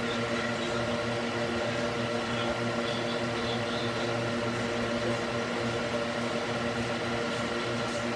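Electric cooling fan mounted in a wooden box running steadily, a constant whir of moving air with a motor hum.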